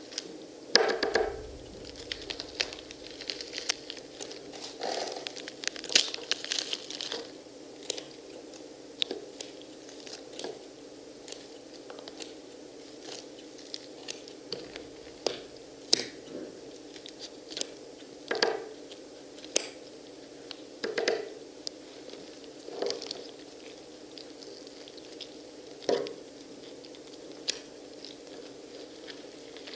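Pomegranates being torn apart and picked at by hand: irregular wet crunches, crackles and tears of rind and seeds, a few seconds apart, over a steady low hum.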